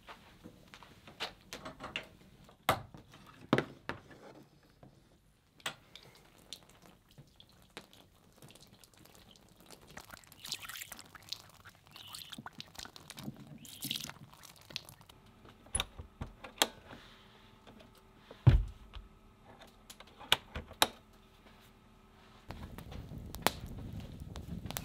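Objects being handled at a campsite: scattered sharp clicks and knocks, with one heavy thump about two-thirds of the way in. A steady hiss starts near the end.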